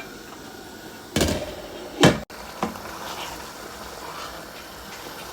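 Two loud knocks about a second apart, then a lighter third, on metal cookware: a lid going onto a pot of coconut rice. A faint steady hiss runs under them.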